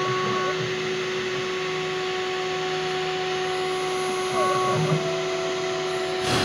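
Homemade CNC router milling isolation tracks into a copper-clad circuit board. The spindle motor whines steadily, and the stepper motors' lower tones change and stop as the axes move, with a brief click near the end.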